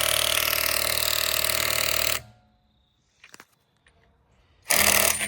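A loud small machine chatters rapidly and cuts off about two seconds in. A second short, loud burst follows near the end and fades.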